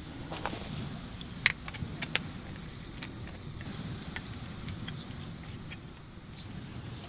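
A few sharp clinks and taps, as of small hard objects being handled, the loudest two about a second and a half and two seconds in, over a low steady rumble.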